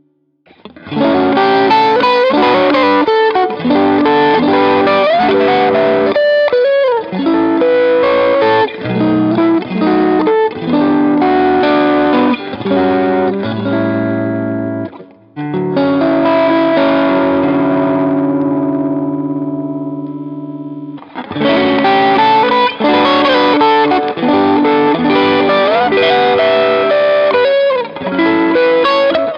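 Fender Custom Shop 1961 Stratocaster electric guitar played over a backing track: quick melodic lines with string bends, a chord left to ring and fade about halfway through, then busy lines again.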